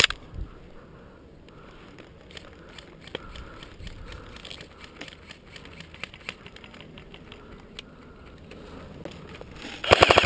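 Faint rustling and small clicks for most of the stretch. Near the end, an airsoft gun opens up in a rapid full-auto burst, which is the loudest sound here.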